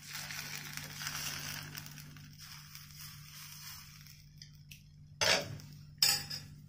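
Steel ladle spreading dosa batter on a nonstick tawa, a faint scraping that fades out, then two short sharp sounds about a second apart near the end.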